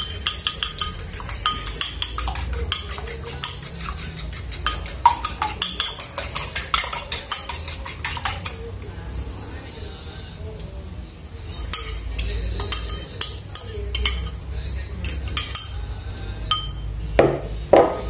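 A fork beating egg in a ceramic bowl, clicking rapidly against the bowl, about five clicks a second, until it stops about eight seconds in. After a pause, more scattered clinks of the fork against the bowl and the mixing tub as the egg is scraped out and stirred into dried anchovies.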